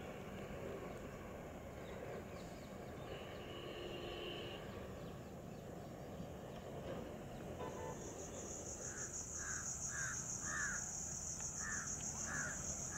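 A crow cawing in a run of about half a dozen evenly spaced caws, starting about two-thirds of the way in. A steady high-pitched insect buzz sets in just before the caws.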